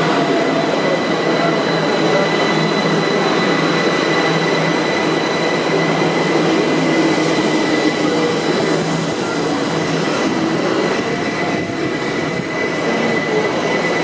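Tehran Metro train running, with a steady rumble of wheels on rail and a constant high whine. A brief hiss comes about nine seconds in.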